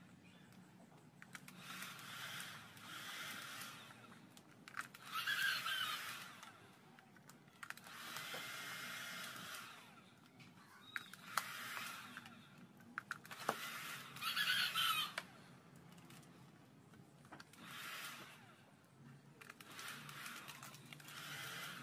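Handheld electric heat gun blowing steadily as it heat-shrinks clear plastic film onto a motorbike lamp lens. A rooster crows several times over it, each crow a second or two long.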